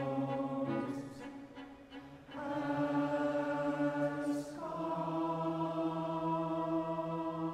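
Large choir singing slow, sustained chords. The sound falls away about a second and a half in, comes back on a new held chord, and moves to another chord about halfway through.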